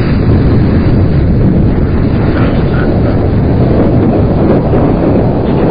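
Wind buffeting a camcorder microphone: a loud, steady rumble, heaviest in the low end.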